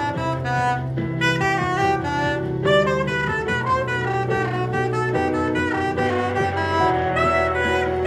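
Soprano saxophone improvising a smooth-jazz line of quick, connected notes over a backing track with a bass line.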